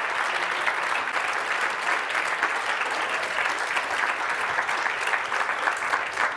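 Audience applause from a large crowd, steady and sustained, dense clapping from many hands, at the close of a talk.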